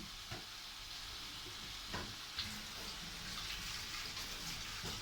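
Squid frying in a pan with a steady sizzle, broken by a few light clicks.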